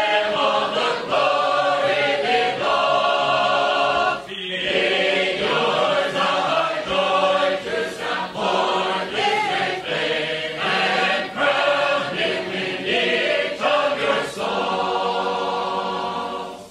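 A choir of voices singing a hymn in phrases, with a brief pause about four seconds in; the singing stops right at the end.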